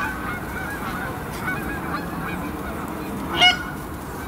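A flock of geese in flight honking: a continuous chorus of fainter calls, with a loud single honk right at the start and another about three and a half seconds in.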